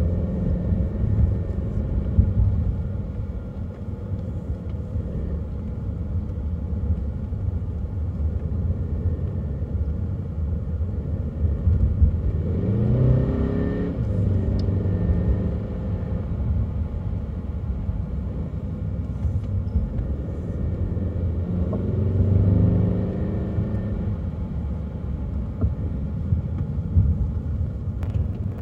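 Car driving on an asphalt road, with steady low engine and tyre rumble. Twice, about twelve seconds in and again near twenty-two seconds, the engine note rises as it gains revs.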